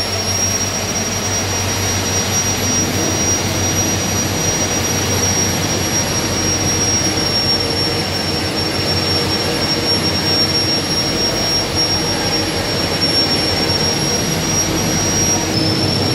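Steady, loud machinery noise in a hydropower station's generator hall: an even roar with a low hum under it and a thin high whine on top, the whine stepping slightly lower near the end.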